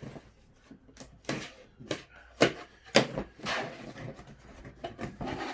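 Cardboard box being opened by hand: a string of sharp clicks, scrapes and rustles as the flaps are pulled open and the contents shifted, with two louder knocks in the middle.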